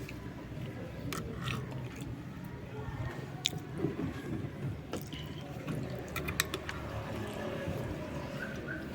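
A person eating: wet chewing with a few short, sharp clicks scattered through, like utensils touching a plate, over a low steady background hum.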